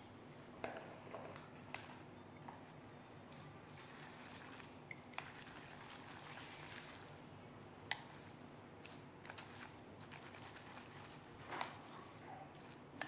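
Chopsticks tossing cooked dong glass noodles through a thick chili sauce in a ceramic bowl: faint wet squishing, with a few light clicks of the chopsticks against the bowl.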